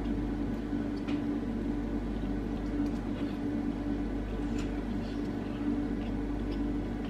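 A steady hum at one low pitch over a faint hiss, with a few faint clicks from eating a meal off a plate with a fork.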